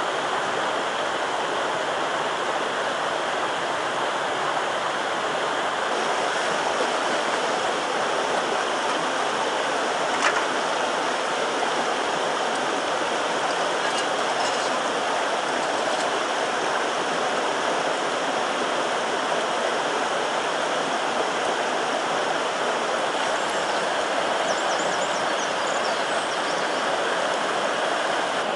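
Steady rushing of flowing water, with one sharp click about ten seconds in.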